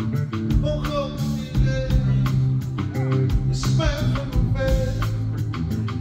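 Live band music with a steady beat and bass line, electric guitar and keyboard, and a man singing into the microphone over it.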